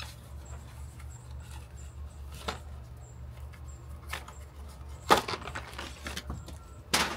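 A coiled paddleboard leash with its Velcro ankle strap being unwrapped and handled: a few sharp clicks and rattles, the loudest about five seconds in, over a steady low hum.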